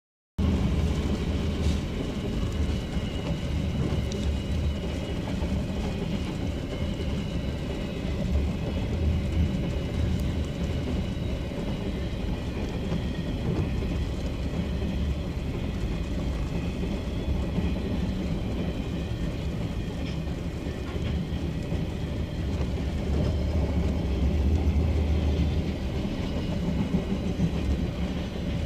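Freight train of container wagons rolling past over a level crossing: a steady rumble throughout, heard from inside a car.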